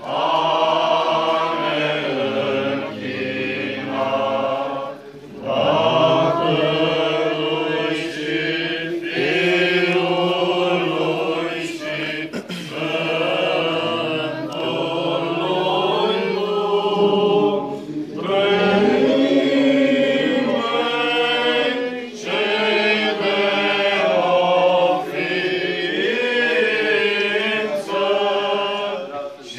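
Romanian Orthodox liturgical chant: voices singing a slow hymn of the Divine Liturgy in long held phrases, with brief pauses between phrases.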